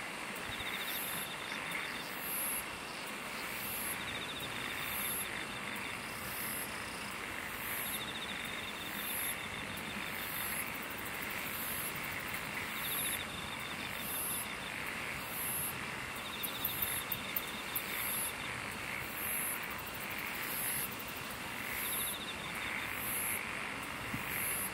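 Chorus of calling insects: a high pulsing call repeating a little more often than once a second over a steady buzz, with a short trill every few seconds. A few quick ticks come about two-thirds of the way through.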